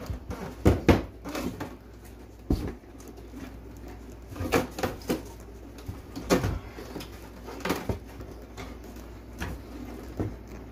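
Wooden kitchen wall cabinet being wrenched loose from a paneled wall: irregular wooden knocks and creaks as the box is tilted and pulled, about ten sharp knocks in all.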